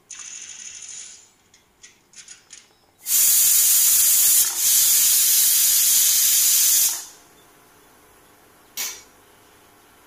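Pressure cooker whistling: steam hisses out loudly past the weight for about four seconds, with a brief dip partway. This is the cooker coming up to pressure and giving its single whistle, which marks the rice as done. A short click follows near the end.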